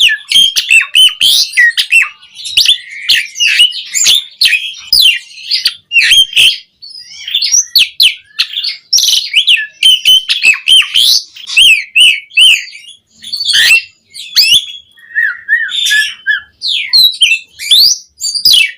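Javan pied starling (jalak suren) in full song: a fast, varied, nearly unbroken stream of whistles, chirps and harsh squawky notes, with mimicked phrases worked in. About two-thirds of the way through comes a brief run of lower, evenly repeated notes.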